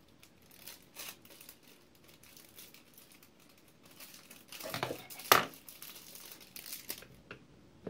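Plastic wrapping crinkling as a nozzle for a portable oral irrigator is unwrapped: scattered light crackles, with a louder burst of crinkling about five seconds in.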